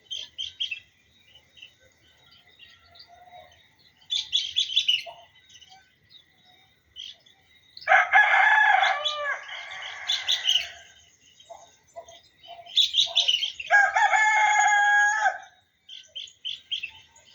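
A rooster crowing twice: a long crow about eight seconds in and a shorter one about six seconds later. Between the crows, small birds chirp in short quick runs.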